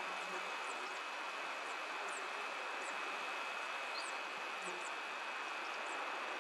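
Steady bush ambience: an even hiss with a constant high insect drone, faint short high chirps scattered throughout, and flies buzzing briefly past, once near the start and again about two-thirds of the way in.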